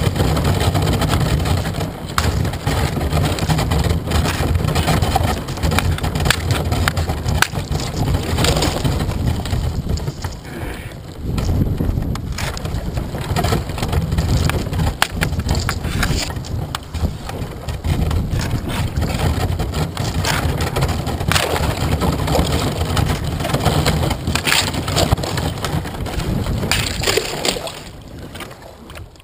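Kayak hull pushing through thin skim ice on a lake: continuous crunching and crackling as the ice breaks and scrapes along the plastic hull, with a short lull about eleven seconds in. Near the end it fades away as the bow reaches open water.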